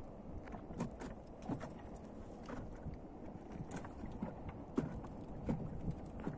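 Outdoor wind and water noise: a steady low rumble with scattered small irregular clicks and knocks.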